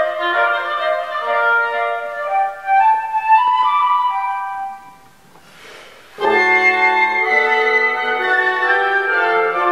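Woodwind quintet of flute, oboe, clarinet, bassoon and horn playing classical chamber music. A higher line climbs a little before the middle, the ensemble breaks off for about a second, then all come back in together with the bassoon's low notes underneath.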